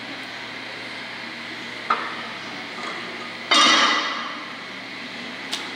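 Cast-iron barbell weight plate clanking against steel as it is loaded onto a rack, one loud metallic clank with a brief ring about three and a half seconds in. A lighter metal knock comes about two seconds in and a small tick near the end.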